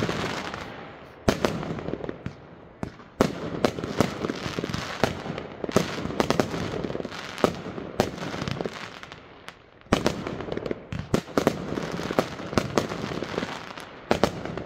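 Consumer aerial fireworks bursting overhead: a rapid, uneven string of sharp bangs that comes thick and fast, with short lulls about a second in, near three seconds, and just before ten seconds.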